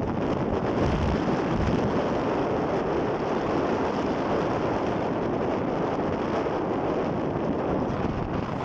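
Steady rumble of a moving train, with wind buffeting the microphone.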